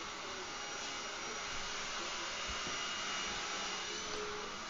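Steady, even background noise, a whooshing hiss with a few faint high whines running through it.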